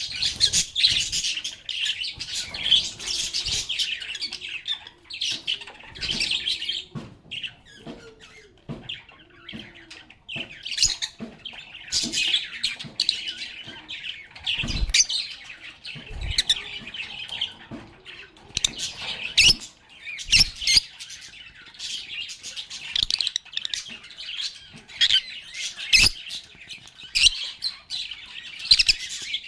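A group of lovebirds (Agapornis) chirping and chattering continuously in rapid, high-pitched calls, with a few short low thumps now and then.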